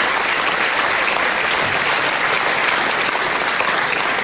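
Studio audience applauding: many people clapping together in a steady, dense patter.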